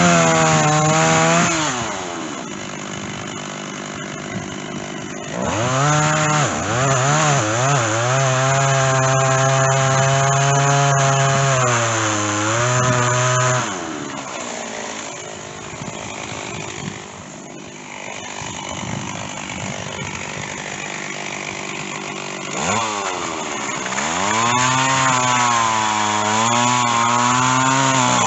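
Stihl chainsaw cutting oak with a dull chain. The engine revs up to full throttle with its pitch wavering under load, drops back to a lower, quieter speed, then revs up again, about three times in all.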